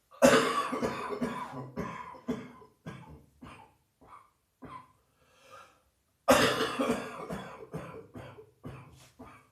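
A person's heavy chest-cold cough, in two fits about six seconds apart: each starts with a loud burst and trails off into a string of shorter, weaker coughs.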